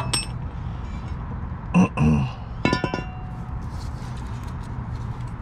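A few sharp metallic clinks and knocks from the rusty steel plow mount plate and its fittings being handled by hand. There is a couple of knocks about two seconds in, then a quick cluster of clinks that ring briefly a little later.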